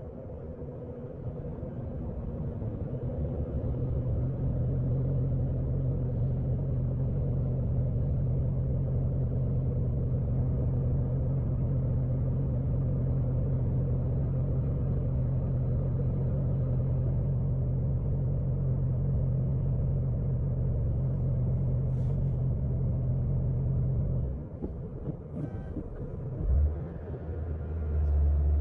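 Low, steady vehicle engine rumble heard from inside a car stopped in traffic. It swells over the first few seconds, drops away about 24 seconds in, and a deeper rumble starts a couple of seconds later.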